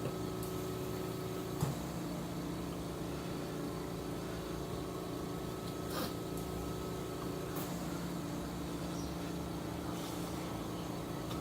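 Steady machine hum with a few faint clicks, about a second and a half in and again around six and seven and a half seconds.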